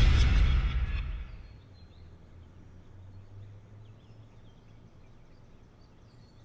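The last hit of the background music fades away over the first second and a half, leaving a quiet room ambience with a faint low hum and a few faint high chirps.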